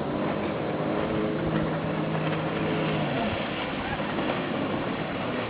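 Jet ski engine running steadily as it goes by on the water, its tone fading out about three seconds in.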